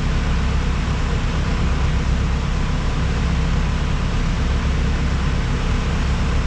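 Steady outdoor city-street ambience: an unbroken low rumble with an even hiss over it, with no distinct events.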